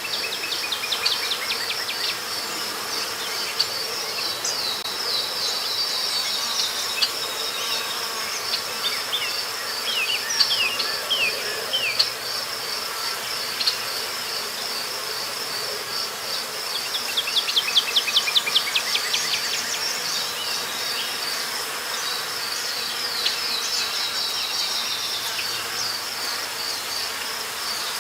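Forest ambience of a steady, high-pitched pulsing insect chorus, with scattered runs of quick, falling chirps, the busiest run about two-thirds of the way through.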